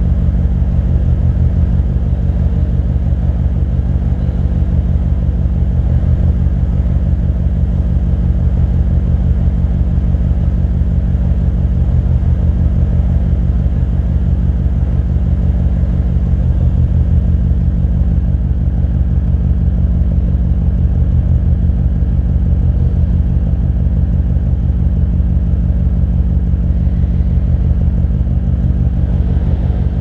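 BMW E39 M5's S62 V8 idling steadily through a custom exhaust, heard close to the quad tailpipes. The deep, even rumble echoes off the concrete of an underground car park.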